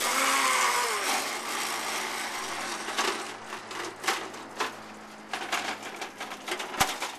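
Electric scooter motor whirring as a homemade wagon scooter pulls away, loudest at first and easing off. Many short clicks and knocks run through it, from the wagon and scooter rattling over concrete.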